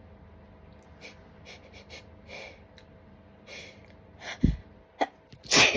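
A person's short hitching breaths and sniffs as a dust-tickled sneeze builds, growing into loud gasping in-breaths in the last second and a half, with a sneeze bursting out right at the end.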